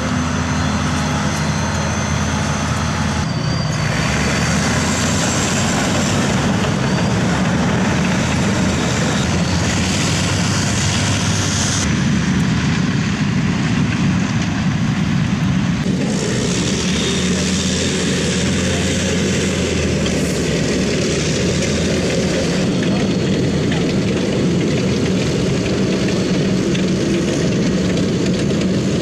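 Off-road vehicle engine running under load with a steady low drone and broad mechanical noise, broken by abrupt changes every several seconds as the footage cuts between shots.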